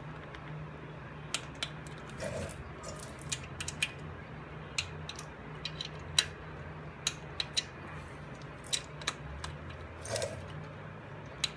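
Irregular sharp metallic clicks and clinks of a torque wrench and socket working the rocker box bolts, over a steady low hum.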